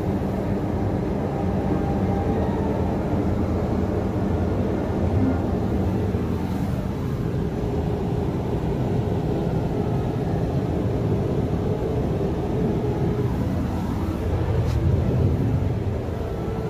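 Steady low rumble and hum inside an enclosed observation-wheel gondola as it turns.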